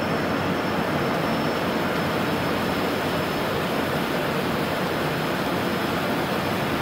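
Steady rush of airflow and engine noise on the Airbus A380's flight deck during final approach with the landing gear down, with a faint steady high whine.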